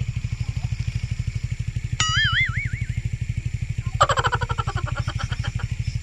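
An engine idling with an even low putter, about ten beats a second. A short warbling high tone comes about two seconds in, and a rapid chattering burst about four seconds in.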